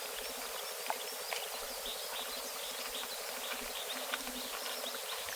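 Insects chirping faintly over a steady outdoor hiss, with a few light clicks.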